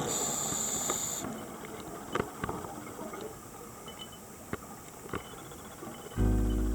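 Underwater sound during a scuba dive: a steady hiss with a few scattered sharp clicks. Music starts loudly near the end.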